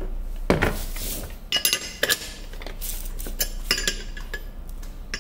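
Wheel guard of a Makita cordless angle grinder being handled and fitted onto the gear head: a string of irregular clinks and clicks of hard parts knocking together.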